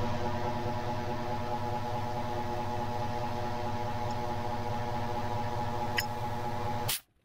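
A steady, loud mechanical drone with a low hum and a constant pitch, like a motor or engine running, that cuts off suddenly near the end. There is a single sharp click about six seconds in.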